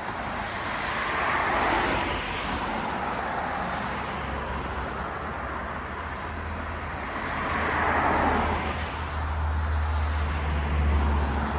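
Street traffic: two passing vehicles swell and fade, about two seconds in and again about eight seconds in, over a low steady engine rumble.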